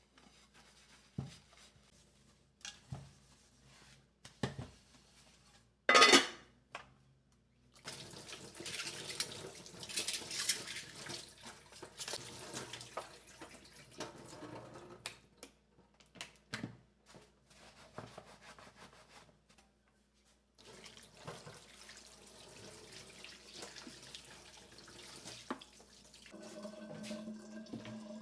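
Kitchen tap water running into a sink in stretches, with knocks of dishes being handled in the first few seconds and a short loud burst about six seconds in.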